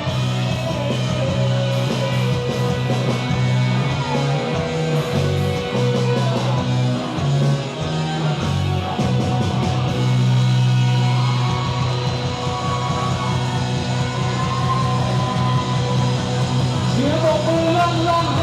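Live rock band playing loud and continuously, with a sustained bass line under the guitars. A singer's voice comes in near the end.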